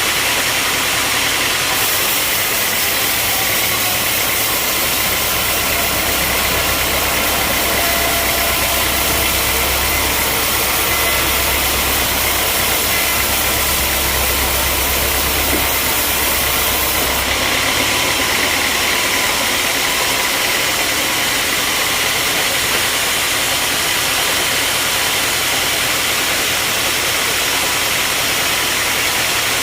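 Sawmill machinery running steadily, a loud engine-like drone under a strong hiss. The hiss shifts abruptly about 2 and 17 seconds in.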